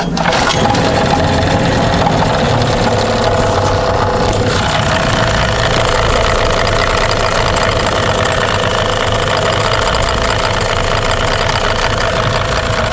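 Tohatsu M15 two-cylinder two-stroke outboard motor started and running. Its sound changes about four and a half seconds in, then it runs steadily. The motor is being checked for a knock at low revs that the mechanics suspect comes from a worn piston pin.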